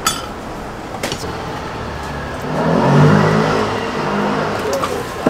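Metal ladle clinking against the soup pot and bowls, twice near the start. A low rumble then swells up and fades again over about two seconds.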